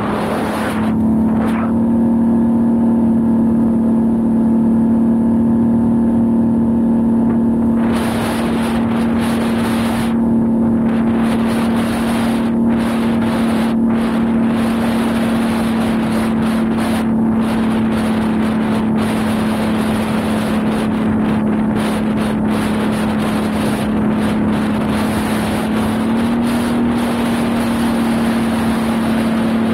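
Can-Am XMR 1000 ATV's V-twin engine running at a steady cruise on a gravel road, with the crunch of tyres on gravel and rushing wind on the microphone. The engine's pitch holds steady and rises a little near the end.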